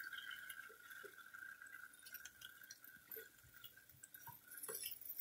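Faint sizzle of chicken thighs frying in oil in a pan, with a few soft clicks and taps as silicone tongs turn the pieces over against the pan.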